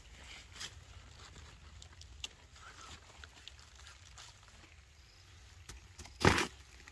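Faint rustling and small clicks of wax gourd vines and leaves being handled while a young gourd is picked. Near the end comes a brief, loud rustle and knock as the gourd goes into a wicker basket lined with banana leaves.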